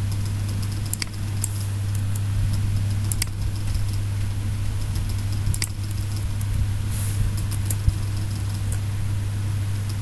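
Steady low electrical hum from the recording setup, with a handful of scattered faint clicks from a computer keyboard and mouse as code is edited.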